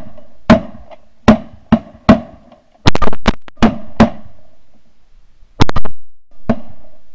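Several hunters' 12-gauge shotguns firing a rapid, ragged volley at a flock of sandhill cranes, about a dozen loud blasts. The shots come thick in the first four seconds, pause briefly, then two or three more follow.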